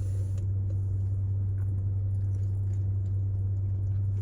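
Steady low hum inside a parked car's cabin, with faint small ticks and rustles of eating.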